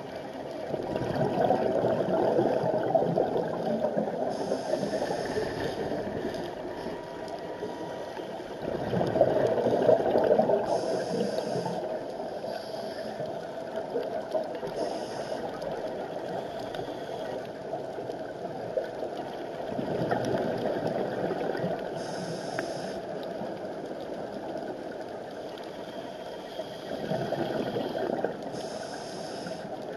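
Scuba diver breathing through a regulator underwater: a bubbling gurgle of exhaled air swelling and fading about four times, with brief hisses of the regulator between breaths.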